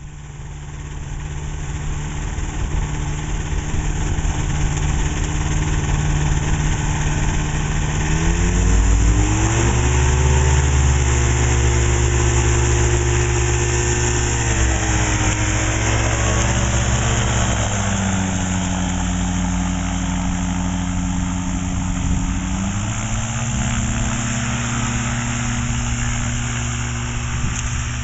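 Kolb Kolbra ultralight's engine and pusher propeller running on the ground. The engine speed steps up about a third of the way in, drops back, and rises and falls again several times as the throttle is worked.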